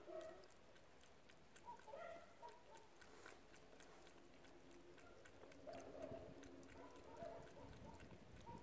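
Cat lapping water from a metal tub: faint, irregular ticks of the tongue at the water, with short bird calls in the background.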